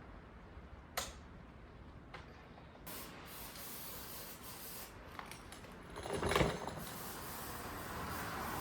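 Aerosol can of brake cleaner spraying in a continuous hiss from about three seconds in, after a single sharp click about a second in; a louder clatter breaks in around six seconds.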